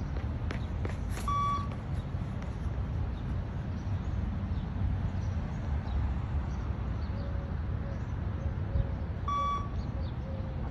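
Two short electronic beeps from a beep-test recording, about eight seconds apart, each signalling the end of a shuttle run. They sound over a steady low rumble.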